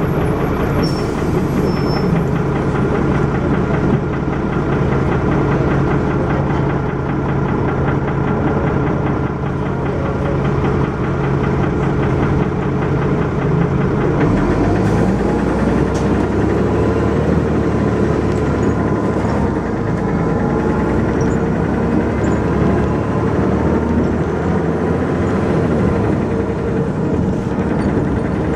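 Dennis Arrow double-decker bus's diesel engine running under way, with the knocking noise this bus is known for; the engine note drops and changes about halfway through.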